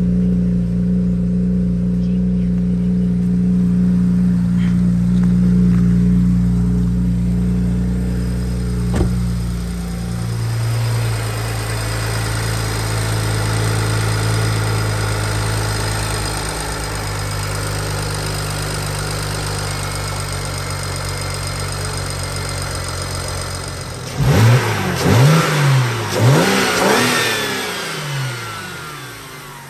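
BMW N54 3.0-litre twin-turbo inline-six idling through a newly fitted dual cone air filter intake. The idle steps down to a lower speed about ten seconds in, then the engine is revved briefly about five times in quick succession near the end.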